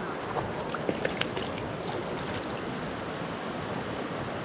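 Shallow river current rushing steadily around a wading angler, with a few brief splashes in the first second and a half as a hooked trout thrashes at the surface before it is netted.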